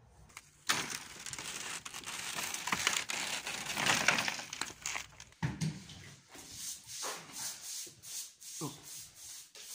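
Wallpaper being torn and pulled off a wall: a long, loud crinkly tearing and rustling, then a run of shorter rips and scrapes.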